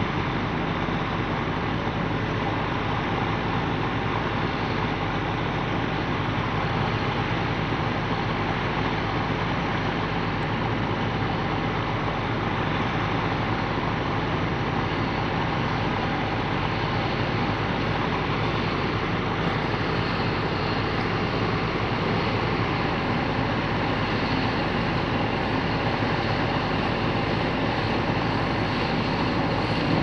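Diesel engine of farm harvest machinery running steadily, an even sound that doesn't change.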